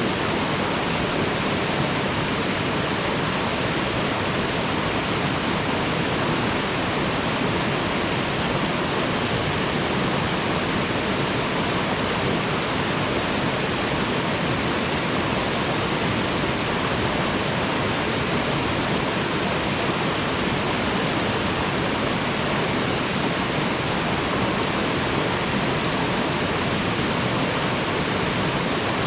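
Waterfall pouring steadily: a constant, even rush of falling water with no breaks.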